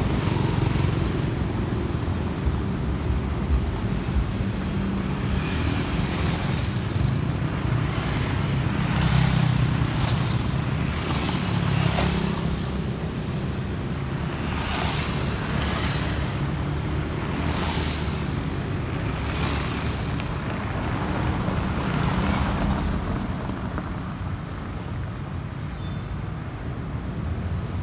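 Light street traffic, mostly motorbikes passing one after another over a steady low rumble, thinning out in the last few seconds.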